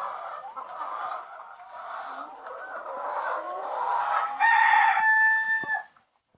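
A flock of caged White Leghorn hens clucking, then about four seconds in a rooster crows once, loud and held for over a second. The sound cuts off suddenly near the end.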